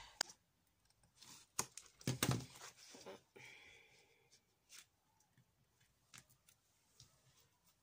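Faint handling of a cut-out piece of Yupo paper on a canvas: rustling and sliding, with a few light taps and clicks scattered through, a louder rustle about two seconds in and a soft sliding hiss a little later.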